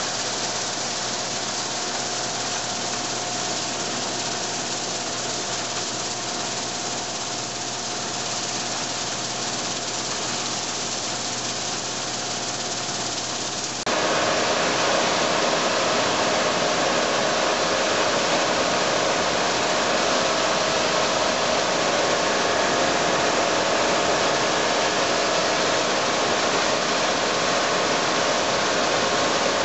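Combine harvester running steadily, a constant machinery hum with a few held tones. About halfway through the sound abruptly becomes louder and brighter, then stays that way.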